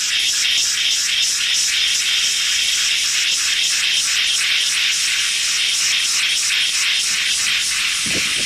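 Experimental electronic noise music: static-like hiss pulsing in an even rhythm at about three to four pulses a second. A lower-pitched sound comes in near the end.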